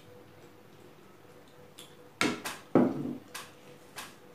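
Sounds of eating rice and dal by hand: a few short, sharp smacks and clicks, the loudest cluster about two to three seconds in, with a last click near the end.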